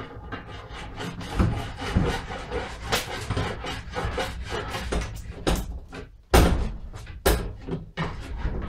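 Rotted timber hatch base being wrenched out of a caravan's aluminium roof frame where it is a tight fit: wood creaking and scraping, with several sharp knocks, the loudest about six seconds in.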